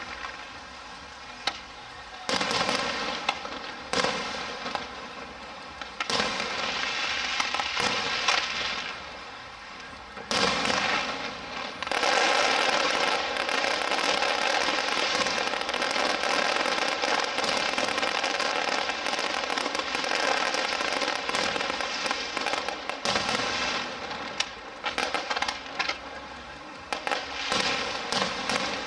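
Aerial fireworks going off: several sudden bursts in the first half, then a long, dense spell of crackling and sizzling stars, thinning out near the end into scattered quick pops.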